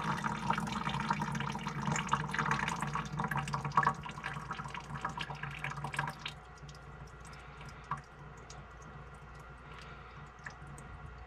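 Water draining out of the freshly cut end of a copper supply pipe, trickling and dripping into a catch container. About six seconds in the flow dies away to scattered single drips.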